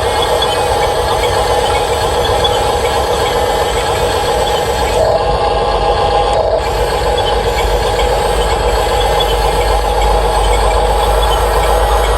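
Radio-controlled construction machines running: a steady mechanical hum and whine from their electric motors and gearboxes, shifting slightly about five seconds in.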